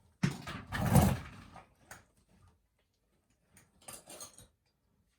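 Metal burner parts being handled, with a loud scraping rattle over the first second and a half. A few faint knocks follow near the end.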